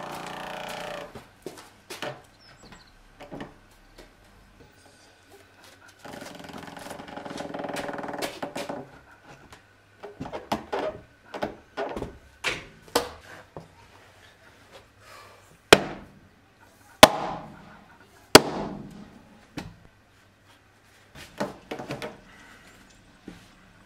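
Heavy hammer blows on a wooden block laid on a Japanese pine beam, driving a daimochi tsugi scarf joint closed. A few lighter knocks are followed by four loud, ringing strikes about a second and a half apart and then a quicker run of knocks near the end, with two longer stretches of rough noise in the first half.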